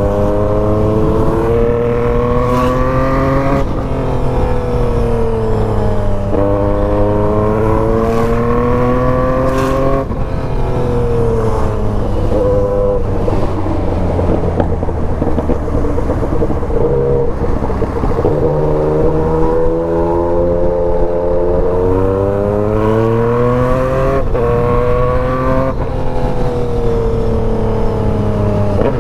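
Yamaha MT-09 with a remapped ECU, running under the rider as it pulls through the gears. The engine note climbs, drops sharply at each upshift and climbs again, several times over. Through the middle stretch it runs lower and more unevenly, off the throttle in traffic.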